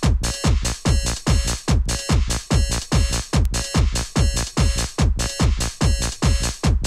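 Techno playing: a steady four-on-the-floor kick drum at a little over two beats a second, each kick dropping in pitch, under a repeating synth pattern.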